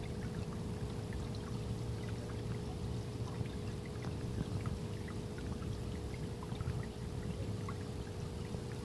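Water steadily trickling and splashing into a garden pond, with a faint steady hum underneath.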